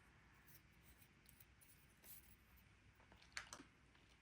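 Near silence with faint handling of cardstock being folded in half: a few soft crinkles and creases, the clearest one about three and a half seconds in.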